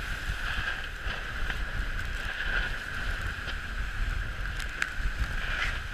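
Water rushing past a Dragonfly trimaran's hulls at racing speed, with low wind buffeting on the microphone and a few sharp slaps of spray and waves against the boat.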